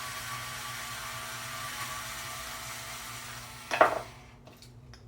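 Cordless electric screwdriver running with a faint steady whine that fades out, then a single sharp knock nearly four seconds in.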